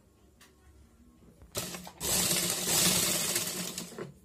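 Sewing machine stitching ribbon onto paper: a short run about a second and a half in, then a steady run of about two seconds that tapers off near the end.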